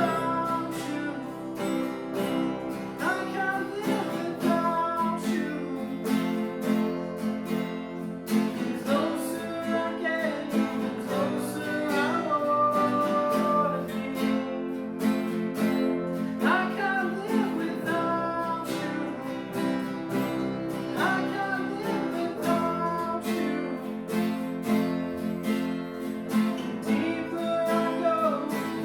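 Strummed acoustic guitar playing a worship song, with a melody line over the chords.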